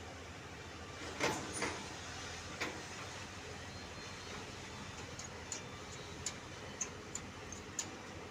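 Three knocks in the first few seconds, then a run of short, sharp clicks about every half second, over a steady background hiss.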